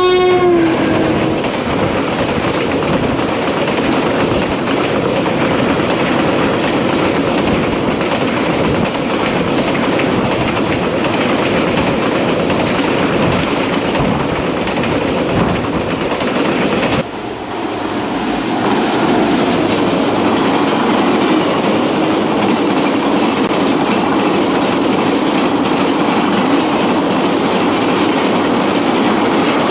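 Train crossing a railway bridge: the last note of its horn in the first second, then the steady rumble and clickety-clack of the wagons rolling past. The sound drops suddenly about 17 seconds in and swells back up.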